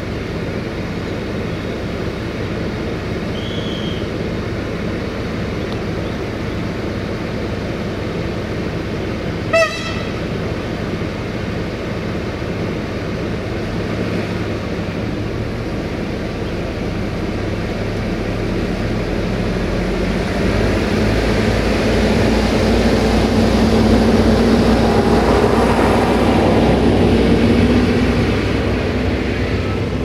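Diesel multiple unit's engine running steadily at a standstill, with one short horn toot about ten seconds in. Later the engine note grows louder and rises slightly as the train pulls away, then fades just before the end.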